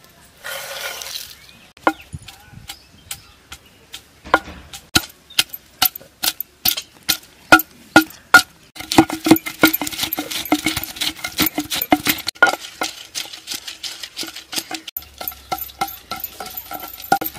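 Sliced garlic sliding off a wooden board into a stone mortar, then a long wooden pestle pounding ginger and garlic in the stone mortar: a steady run of sharp knocks, about two to three a second.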